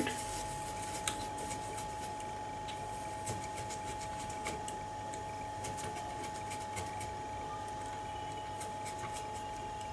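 A wad of cotton rubbed over a laptop motherboard around a freshly soldered chip, wiping off flux residue: faint, scattered scratchy ticks over a steady faint whine.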